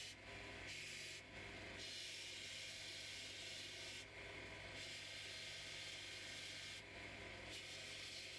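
Mado MNS630 belt sharpener grinding a machete edge on a coarse 60-grit wet belt: a steady grinding hiss over the machine's low motor hum. The hiss breaks off briefly about four times.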